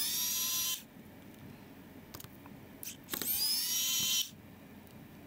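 Pen-style electric screwdriver whining in two short runs of about a second each, backing out laptop hinge screws; each run starts with a quick rise in pitch as the motor spins up. A few light clicks come between the runs.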